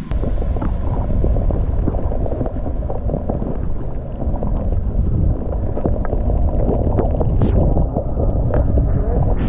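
Wind rushing over the microphone during a run through deep powder snow: a steady low rumble with the crackle and hiss of snow under the rider.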